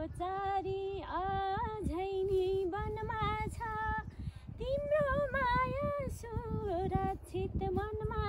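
A woman singing a Nepali folk tune alone, without accompaniment, in long held notes with a wavering, ornamented pitch.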